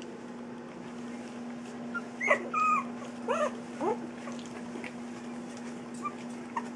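Three-week-old puppies giving short, high-pitched squeaks and whimpers as they play-wrestle, a cluster of cries about two seconds in and a few scattered ones later. A steady low hum runs underneath.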